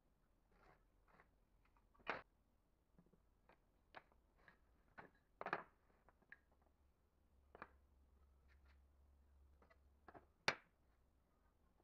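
Light clacks and knocks of wooden strips being picked up, shifted and set down on a tabletop, a dozen or so scattered taps with three sharper knocks about two, five and a half and ten and a half seconds in.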